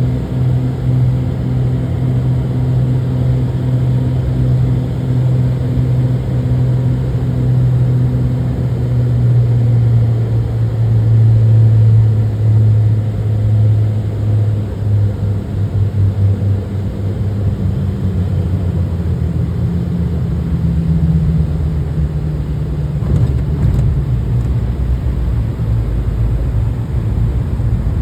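Small airplane's engine drone with a strong low hum that drops in pitch about halfway through as power comes back for landing. A higher tone rises near the end over low rumbling.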